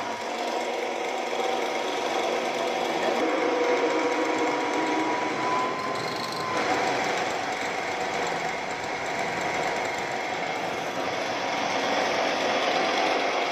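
Small electric grain mill running steadily, grinding dry feed fed into its hopper into bait powder.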